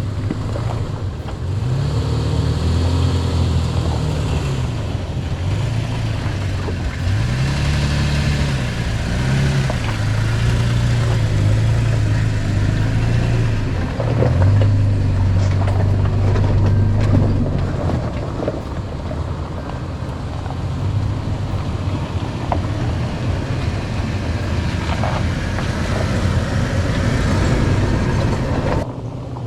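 A 4x4's engine running at low speed as it crawls over a rocky trail, the revs rising and falling again and again, with occasional knocks and rattles.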